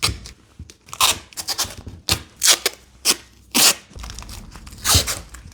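A hose being pried off its fitting in the engine bay: a series of sharp, irregular scrapes and cracks of plastic and rubber, about seven in all, with a low rumble joining in near the end.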